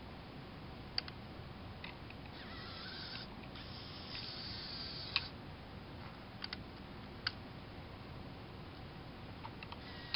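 Small Lego Power Functions electric motor and its gears whirring in two short bursts a few seconds in, with sharp plastic clicks scattered through as the Lego parts are handled.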